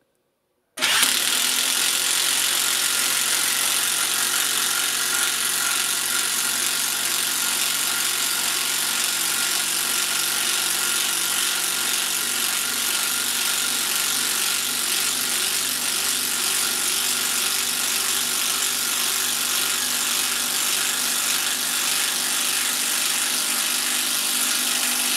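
Banggood 18 V cordless impact driver hammering continuously as it drives a 150 mm screw all the way in under heavy load. The steady rattle of the impact mechanism starts about a second in, runs for about 24 seconds and stops abruptly near the end.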